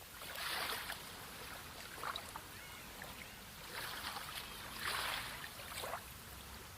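Sea water washing and lapping, with several swelling surges of wash and small splashes.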